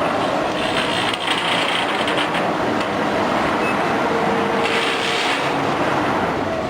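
Laser cutting machine running with a steady rushing noise, its hiss briefly stronger about a second in and again near five seconds.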